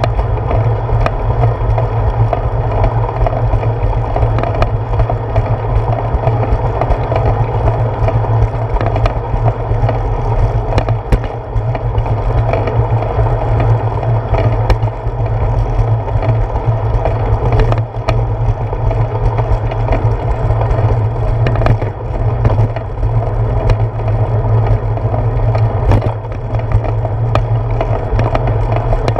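Bicycle rolling over a concrete sidewalk, picked up through a handlebar-mounted camera: a loud, steady road rumble and rattle with occasional sharp knocks.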